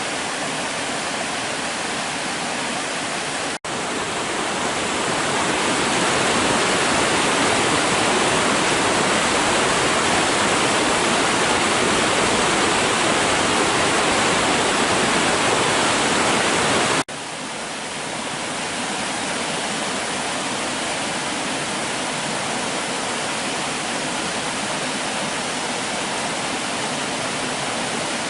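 Water of the roughly 38-metre Suuçtu Waterfall falling and rushing, a steady dense roar. The sound drops out for an instant about three and a half seconds in and again around seventeen seconds, after which it is quieter.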